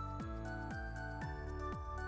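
Background music: held chord tones over a steady beat of about two pulses a second, each pulse a deep falling-pitch thump.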